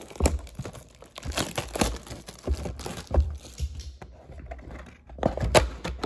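Plastic shrink-wrap on a cardboard trading-card blaster box crinkling and tearing as it is slit and stripped off, in a run of short irregular crackles and scrapes of hands on cardboard. The loudest crackle comes about five and a half seconds in, as the box's cardboard top flap is pulled open.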